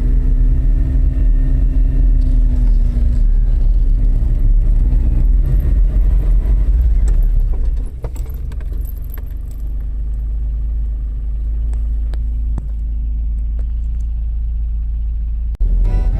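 Suzuki Jimny engine and road rumble heard from inside the car, loud and steady; about halfway it drops to a quieter, even hum, with a few light clicks and rattles.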